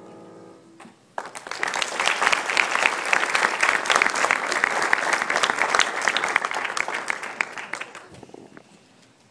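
The grand piano's last chord fades out. About a second in, audience applause starts and runs strongly, then dies away near the end.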